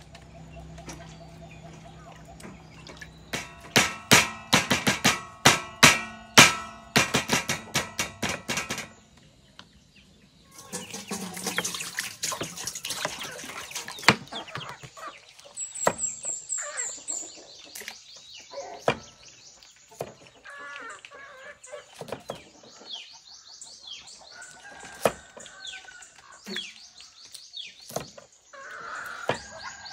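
A cleaver chopping on a wooden chopping block in a quick run of sharp knocks. Then water pours from a plastic bottle into a stainless steel basin. After that come scattered cuts as bitter gourd is sliced on the block, with chickens clucking and a bird giving a quick high run of chirps.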